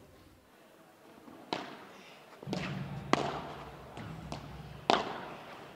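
Padel rally: the ball is struck by rackets and bounces on the court, about five sharp pops. The loudest come about three seconds in and near the end.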